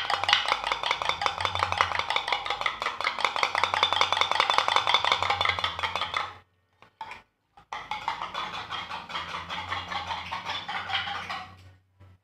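A spoon whipping dalgona coffee mixture by hand in a mug, making a rapid, even clicking against the mug's sides. It stops about six seconds in for a second or so, then starts again and fades out near the end. Hand-beating of this kind is what works the coffee up into froth.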